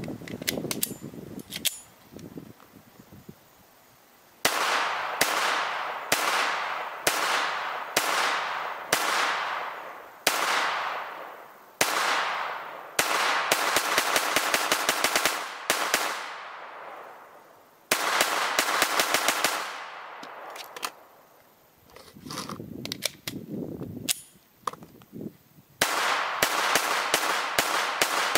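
AR-15 rifle with a lightweight bolt carrier group firing 68-grain rounds. After a few metal clicks of handling, it fires single shots about one a second, then fast strings of many shots, each crack trailing off in a short echo. A lull in the firing comes about two-thirds of the way through.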